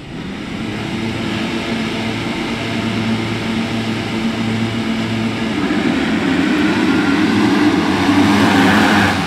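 A field of motocross bikes running together on the start line, then launching off it about five seconds in. The engine noise grows steadily louder, peaking near the end.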